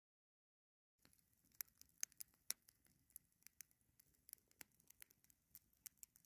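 Wood fire in a metal fire pan crackling: irregular sharp pops and snaps, beginning about a second in after dead silence.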